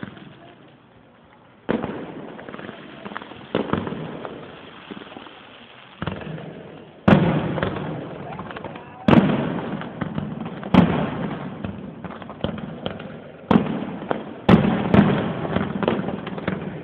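Aerial firework shells bursting: a run of sudden loud booms, one every one to three seconds, each trailing off in a rumbling echo, heard through a phone microphone.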